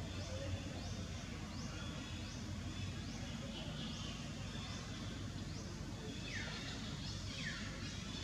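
Outdoor ambience: a short, high, rising chirp repeats about every half second over a low steady hum. Near the end come two falling calls.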